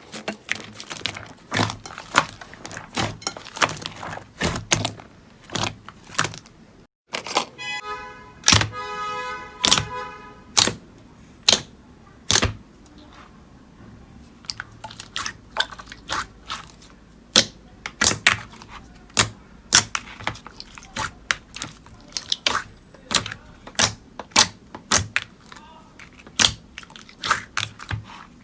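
Slime being pressed, poked and squeezed, giving many sharp clicks and pops at irregular intervals. A short pitched, repeating tone sounds about a third of the way in.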